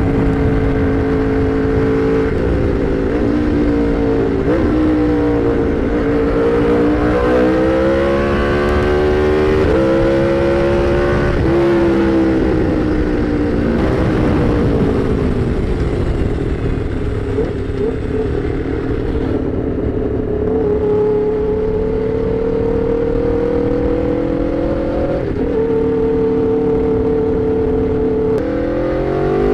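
Aprilia RSV4 Factory's V4 engine through an SC-Project CRT exhaust, heard on board at highway speed. The revs rise and fall with throttle and gear changes, hold steadier through the second half, then climb sharply near the end, over a steady wind rush.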